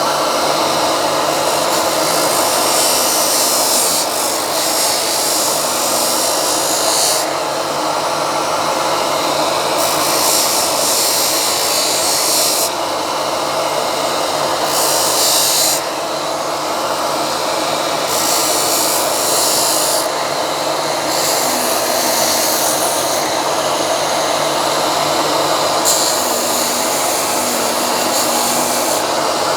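Electric drill running at full speed, boring holes through wooden strips: a steady motor hum, with a hissing cutting noise that comes and goes every few seconds as the bit goes into the wood.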